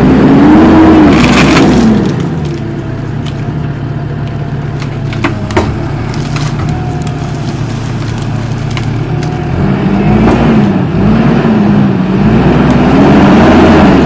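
Kubota SVL90-2 compact track loader's diesel engine running under hydraulic load, its pitch swinging up and down for the first two seconds and again from about ten seconds on, with a steadier, quieter stretch in between. A few sharp clicks and a crack come about five and a half seconds in as the hydraulic tree shear severs the trunk.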